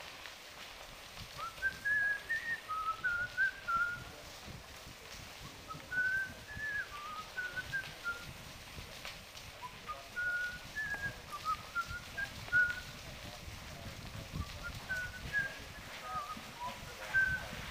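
A person whistling a tune inside the tunnel, in four short phrases of a few notes each, over the low rumble and bumps of bicycle tyres on the gravel path.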